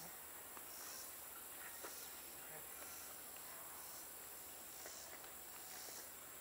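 Faint insect chorus trilling, swelling and fading about once a second, over a low steady hum.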